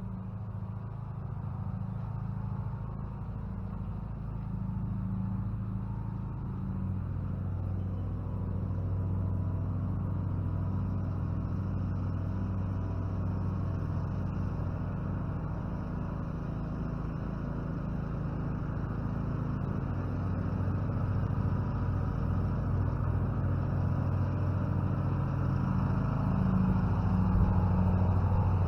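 A steady low engine hum that holds one pitch and grows slowly louder toward the end.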